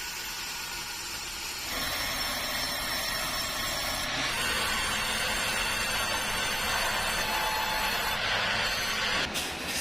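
Sawmill saw machinery running with a steady noise and a high whine, getting louder about two seconds in. A rapid rattling clatter starts near the end.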